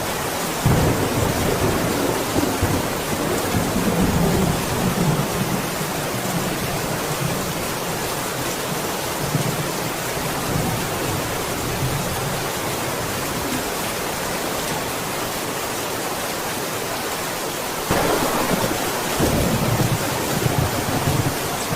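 Steady heavy rain, with thunder breaking in suddenly about a second in and rumbling for a few seconds, then again near the end.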